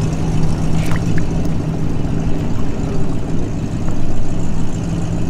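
Steady low motor hum over a low rumble, with a couple of faint clicks about a second in.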